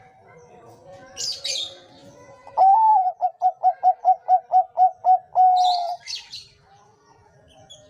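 Zebra dove (Bangkok-type perkutut) singing one song: an opening note, a quick run of about eleven short coos at some four a second, and a long held note at the end. Higher chirps from small birds come just before and again as the song ends, over fainter cooing from other doves.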